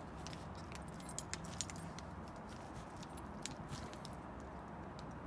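Scattered light metallic clicks and clinks of hand tools working on small microwave parts, over a steady low background hum.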